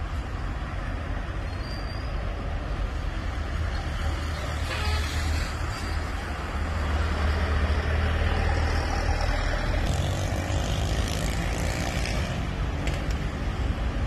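City road traffic: cars and a light truck passing, their engines rumbling low under a steady hiss of tyres on asphalt. It grows louder about halfway through as vehicles pass on the near road, then eases slightly.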